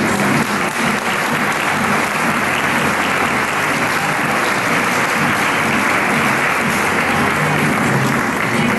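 Audience applauding steadily, with music playing underneath; the clapping gives way to the music near the end.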